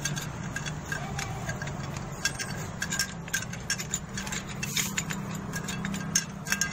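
Light, irregular metal clicks and clinks as the clutch assembly of a Honda Revo Fit is handled and turned by hand on the engine, over a steady low hum.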